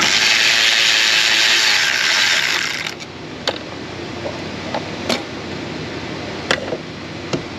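Ratchet wrench clicking rapidly for about three seconds as it spins a throttle-body fastener, then stops. A few separate light clicks and knocks of tools follow.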